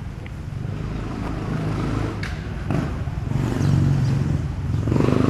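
A motor vehicle engine running steadily, growing louder from about halfway through.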